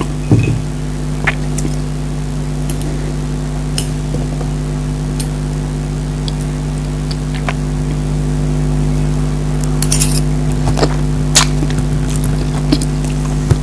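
Eating sounds: scattered small clicks and clinks of cutlery on a plate and bites of food, over a steady low hum that runs throughout.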